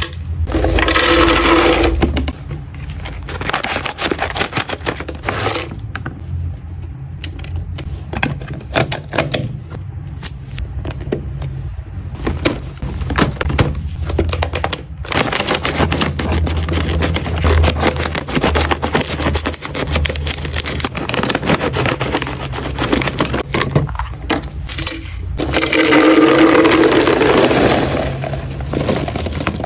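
Plastic and foil snack packaging crinkling and rustling as it is handled and set into a clear plastic storage container. Near the end, freeze-dried pet-treat cubes pour from a bag and rattle into the plastic container.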